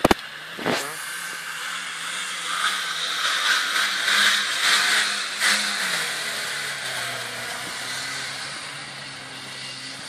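A Suzuki Grand Vitara's 2.0-litre 16-valve engine is revving hard as the SUV slides and spins its mud-terrain tyres through snow, with a loud hiss of spraying snow. The revs and the hiss are highest in the middle and drop after about six seconds.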